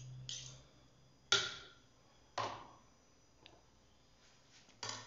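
Metal cutlery clinking: a table knife scraping margarine off a metal spoon at the rim of a saucepan, heard as a handful of short, sharp clicks about a second apart, the loudest a little over a second in.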